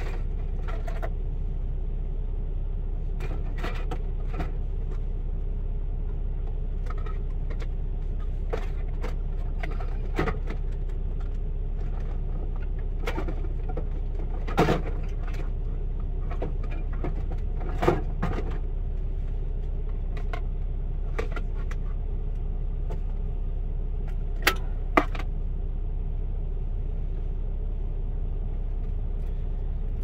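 Steady low rumble of a commercial truck's idling engine, heard inside the sleeper cab. Occasional short clicks and knocks of things being handled sound over it, the loudest a few about halfway through and near the end.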